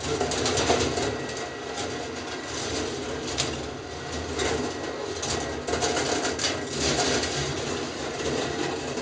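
Balls rolling along the copper rail track of a rolling ball sculpture: a steady rolling rumble broken by many small clicks and clacks.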